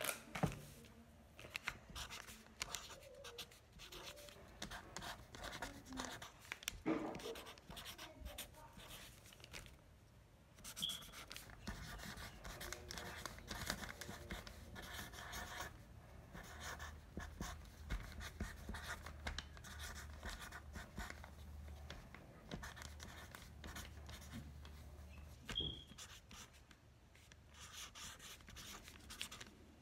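Marker pen scratching across a bag as letters are written, in short runs of strokes with pauses between them.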